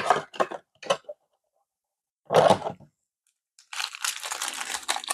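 Foil trading-card packs and their cardboard blaster box being handled: a few short taps and rustles, a heavier bump about halfway through, then steady crinkling of the pack wrappers for the last second and a half.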